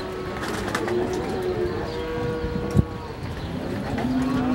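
Cattle in crowded pens mooing, several overlapping calls at different pitches, one held for over a second in the middle and another starting near the end. A single sharp knock comes a little before three seconds in.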